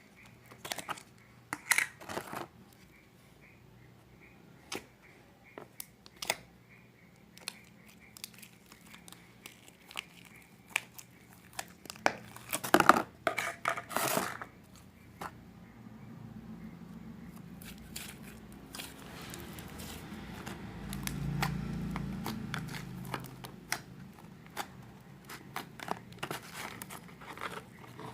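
Hands mixing and squishing a layered butter slime with a crunchy base, making sticky clicks, pops and crackles. There is a burst of louder crackling about halfway through, then steadier squishing.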